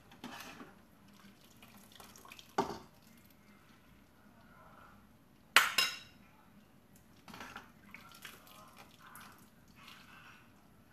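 Kitchen utensils knocking and clinking against a steel cooking pot and a bowl as food is dished out. There are scattered light clinks and two louder clanks, about two and a half and five and a half seconds in; the second is the loudest and rings briefly.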